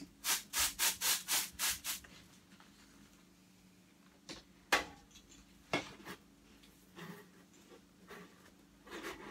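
Sheet-metal stovepipe being worked back and forth at a joint to free it from the wood stove, metal scraping on metal in quick strokes, about four a second, for roughly the first two seconds. Then mostly quiet, with a few sharp metal knocks as the pipe is handled, the loudest a little under five seconds in.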